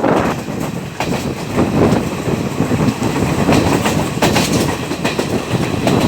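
Train running along the rails: a steady loud rumble with the wheels clattering over the rail joints.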